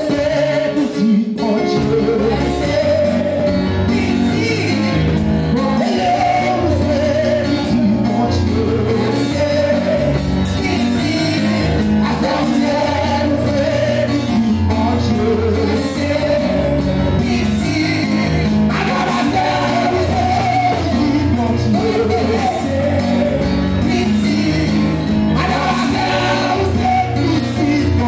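Pentecostal congregation singing a worship song together with musical accompaniment and a steady low bass line.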